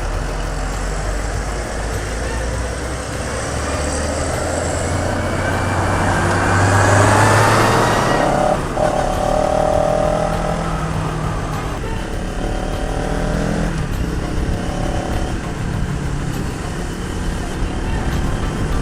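CFMoto 700CL-X parallel-twin engine running under riding, with wind and road noise. The revs climb to a loud peak about seven seconds in, then settle, with short breaks between gears.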